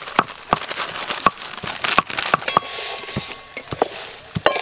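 Dry vermicelli poured into a metal wok and stirred with a wooden spatula: a quick, irregular run of sharp crackles and clicks over a light hiss.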